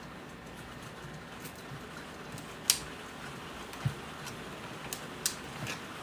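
A handful of sharp clicks and light taps, about five, from small things handled on a soldering workbench, the loudest a little under halfway through, over a steady background hiss.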